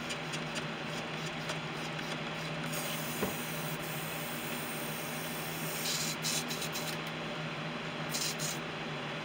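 Steady small-motor hum with an even hiss, with a few brief light rattles and clicks about six and eight seconds in.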